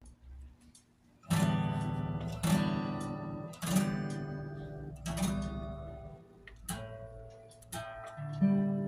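Acoustic guitar strumming slow chords, one strum about every second, each left to ring and fade.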